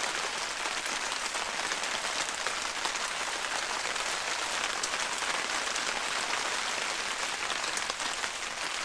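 Steady rain falling on the tarp canopy overhead: a dense, even hiss of drops.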